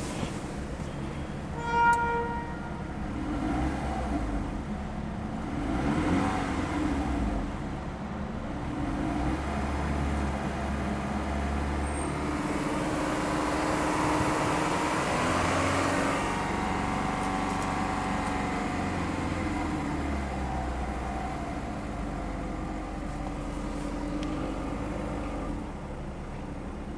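Volkswagen Polo 6N2 1.4 16V petrol engine running, with a short horn-like tone about two seconds in.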